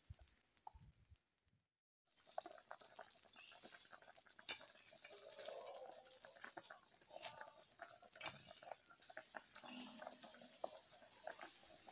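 Faint bubbling and popping of fish soup simmering in a pot, with scattered small clicks over a soft hiss. It starts about two seconds in, after near silence.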